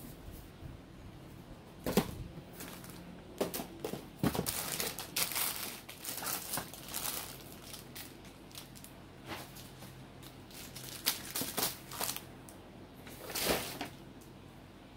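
Plastic snack wrappers crinkling and rustling in uneven bursts as a hand rummages through a pile of wrapped sweets and boxes, with a few sharp knocks as packs are moved and set down.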